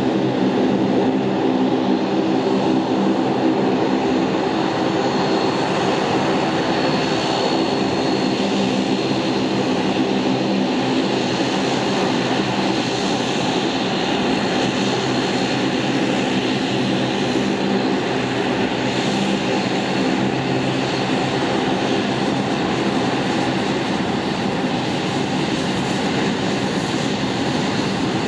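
Luxair De Havilland Canada Dash 8-400 turboprop's engines and propellers running at power: a steady droning hum with a faint high whine, getting slightly quieter over the span.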